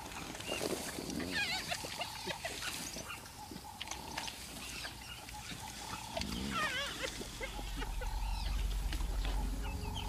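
Spotted hyenas at a carcass giving squealing calls that waver up and down in pitch, with one burst about a second and a half in and another around seven seconds.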